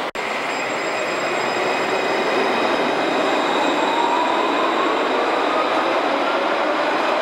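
Alstom Citadis 403 tram pulling away from a station, with steady running noise. About halfway in, its traction motors start a whine that rises slowly in pitch as it gathers speed.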